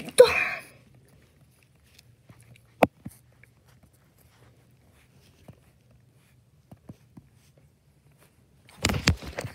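Faint taps on an iPad's on-screen keyboard, with one sharper click about three seconds in and a few fainter ticks later. Near the end comes a short, louder burst of rustling handling noise.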